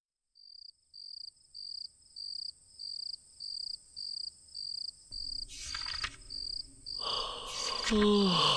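Cricket chirping in a steady rhythm, a short high chirp about every 0.6 seconds over a continuous higher trill. About halfway a low rumble and hissing noise build up, growing louder near the end, where a falling, voice-like moan begins.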